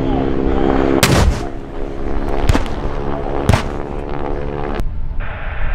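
A propeller aircraft's engine drones overhead, then three sharp blasts from airshow pyrotechnic charges go off on the ground, about a second apart.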